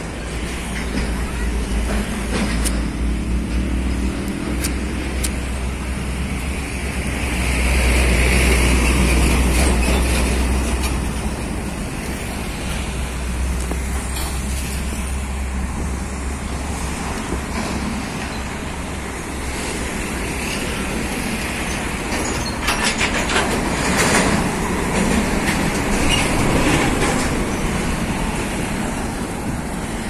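Heavy Scania lowbed trailer trucks hauling tracked earthmoving machines passing on the road, diesel engines rumbling and trailers rattling. The rumble is loudest about eight seconds in, and a second truck brings louder rattling and hiss toward the end.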